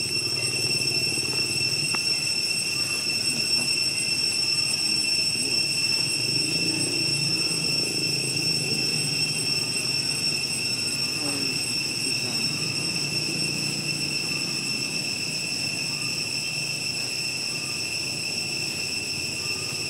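Insects droning in the trees: one steady, high-pitched whine that holds its pitch without a break.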